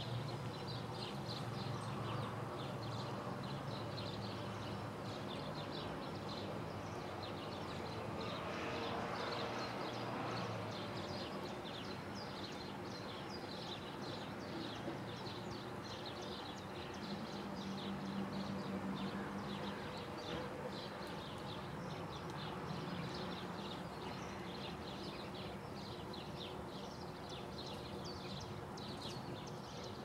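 Many small birds chirping in quick, short high notes all through, over a steady low background hum.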